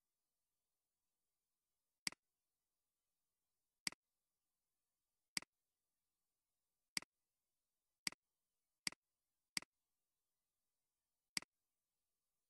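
Computer mouse clicking: eight single sharp clicks at uneven intervals, three of them in quicker succession past the middle.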